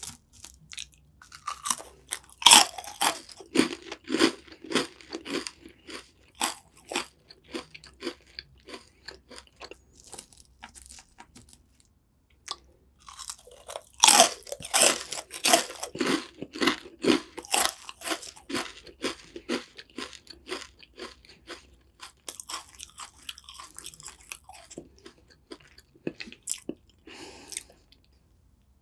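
Close-miked crunching of crisp yellow snack sticks being bitten and chewed. A loud bite comes about two seconds in, followed by dense crunchy chewing. After a brief pause past the middle, another loud bite starts a second stretch of crunching that tails off near the end.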